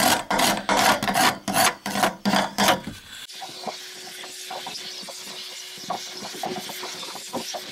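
Scraping and scrubbing strokes, about three a second, as dirt and rust are worked loose around the fuel pump's lock ring. About three seconds in the scraping stops and a vacuum cleaner is heard with a steady, quieter hiss and faint hum, with small clicks of debris as its nozzle cleans around the ring.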